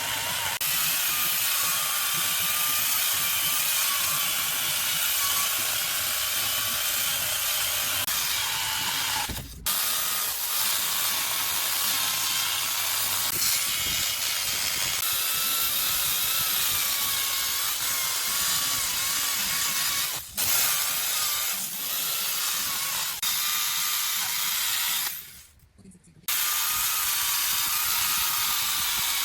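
Chainsaw running and cutting into wood, its engine note wavering up and down. The sound drops out abruptly and briefly three times: about ten seconds in, about twenty seconds in, and for about a second near twenty-five seconds.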